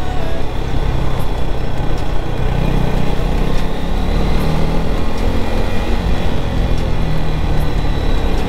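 KTM Duke 250 motorcycle's single-cylinder engine running steadily under way, with continuous wind and road noise over the microphone.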